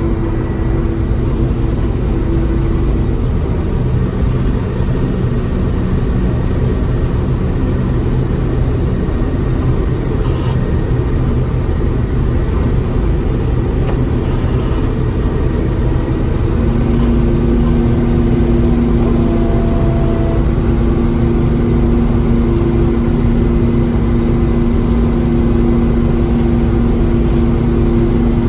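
John Deere 4400 combine running steadily while harvesting corn: an engine and machinery drone with steady humming tones. About two-thirds of the way through, a second, lower hum comes in and the running gets a little louder.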